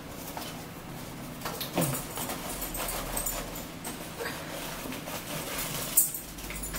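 Plastic cracker sleeve crinkling as it is torn open and handled, with one sharper crackle near the end and a brief low vocal sound about two seconds in.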